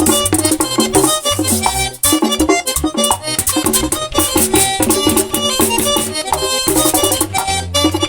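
Instrumental merengue típico played live: rapid accordion runs over a driving bass line and percussion.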